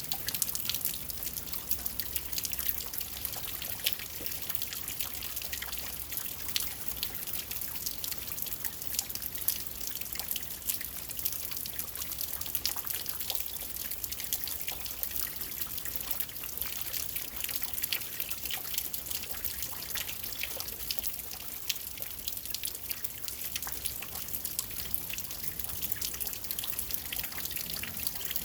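Steady rainfall: a constant hiss of rain with many small drops pattering and dripping, and a trickle of runoff water.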